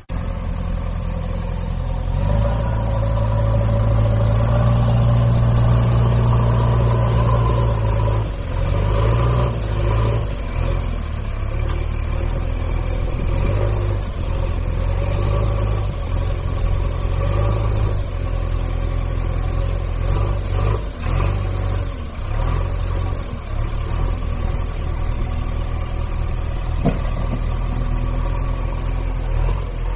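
A large engine idling steadily with a low, even drone that gets a little louder about two seconds in.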